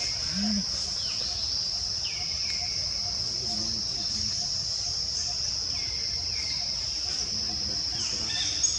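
Steady high-pitched drone of forest insects such as cicadas or crickets, with short falling chirps repeating about once a second and a brief sharp peak near the end.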